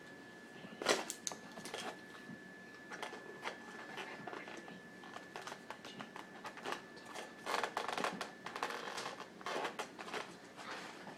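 Food container and utensils being handled while eating: irregular light clicks, taps and rustles, thickest about three quarters of the way through, over a faint steady high-pitched whine.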